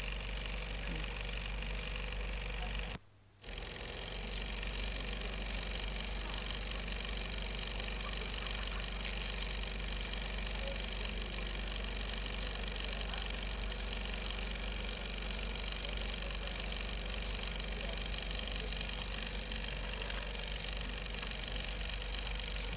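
Steady hum with an even hiss over it, cutting out briefly about three seconds in.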